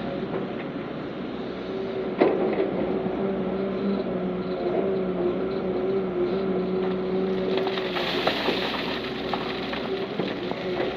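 Heavy diesel engine of earthmoving machinery running steadily. There is a sharp knock about two seconds in and a rougher, hissier stretch about eight seconds in.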